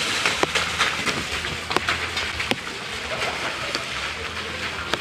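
Heavy rain falling steadily, with many sharp drips and splashes scattered through it.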